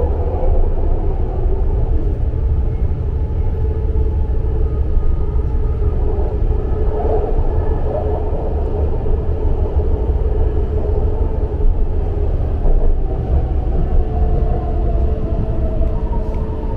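Inside a BART Legacy Fleet car running on the track: a steady, heavy low rumble of the wheels and car body, with a steady whine over it, as the train slows into a station.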